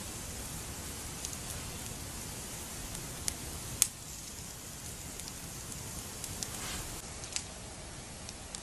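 Wood campfire crackling, with a few sharp pops (the loudest about four seconds in) over a steady hiss.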